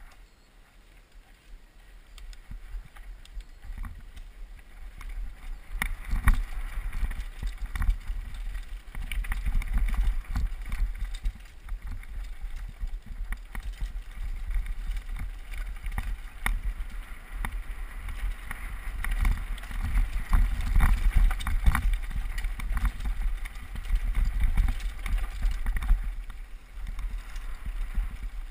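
Downhill mountain bike clattering and rattling over a rough dirt and stone trail, with wind rumbling on the rider-worn GoPro's microphone. It is quieter for the first few seconds, then gets louder and busier with many sharp knocks as the bike picks up speed.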